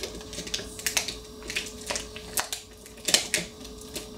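Plastic toy and its packaging being handled: irregular sharp clicks and crackles about twice a second, the loudest about three seconds in, over a faint steady hum.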